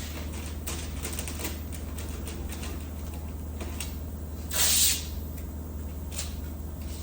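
A steady low hum with scattered light clicks and taps, and one loud hiss lasting about half a second a little past the middle.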